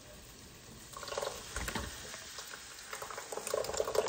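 Thick tomato sauce scraped out of a tin can with a spatula and glopping into a hot pot of cooking ground beef. It starts about a second in as soft, irregular scrapes and clicks, with a dull thump a little before two seconds in.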